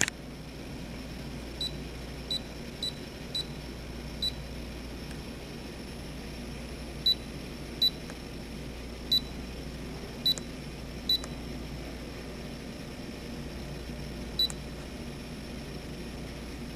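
GE Monogram stainless steel top-control dishwasher's touch panel beeping as its buttons are pressed one by one: about eleven short, high beeps at uneven intervals, over a steady low hum. Each beep acknowledges a button press as the controls are tested.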